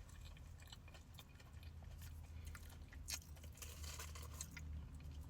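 Faint close-up chewing and biting of a deep-fried crab cake, with small scattered mouth clicks and a sharper click about three seconds in, over a steady low hum.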